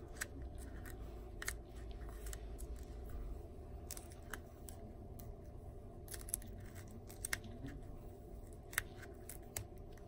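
Small adhesive stencils being picked up with a razor tip and peeled off a stippled polymer Glock 19 frame: faint, scattered small ticks and crackles over a steady low hum.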